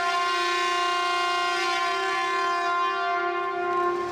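Shinkansen train's horn sounding one long, steady blast for departure.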